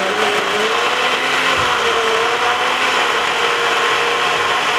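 Personal blender's motor running, whirring a green smoothie of kale, cucumber, celery, ginger, mint and water, held down on the base. A steady whine whose pitch wavers slightly.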